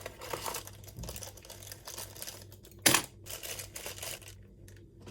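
Rustling and crinkling of blind-box packaging being handled, with a sharp click or tap about three seconds in.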